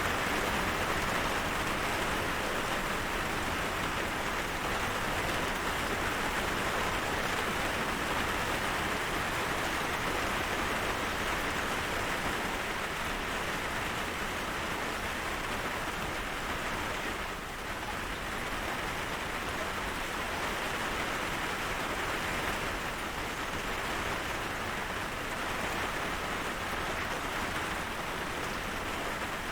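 Steady rain falling as an even hiss, easing briefly just past halfway.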